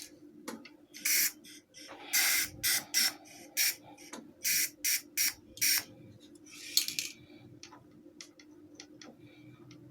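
Aerosol lubricating-oil can spraying in about ten short spurts into an electric fan's centre shaft, to lubricate a dry, squeaking shaft bearing. The spurts stop about seven seconds in, leaving a few faint ticks.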